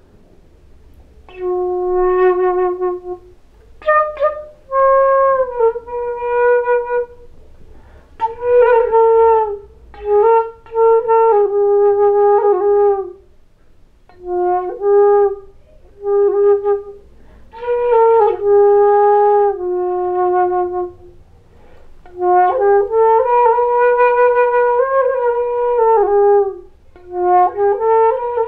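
Side-blown flute playing a slow melody in short phrases with brief pauses between them, some notes sliding into the next.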